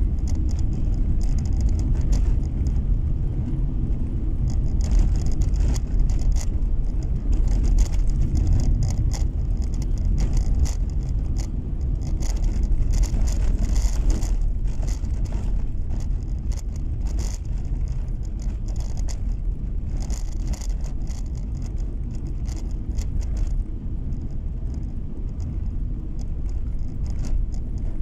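Car driving on a snow-packed road, heard from inside the cabin: a steady low road and engine rumble, with patches of light crackling coming and going.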